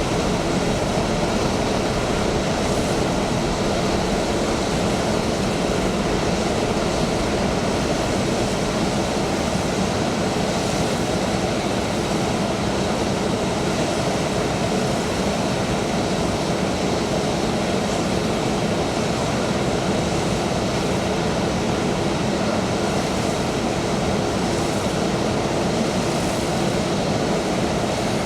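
Steady noise of jet aircraft engines running at idle, with a faint whine held at a steady pitch.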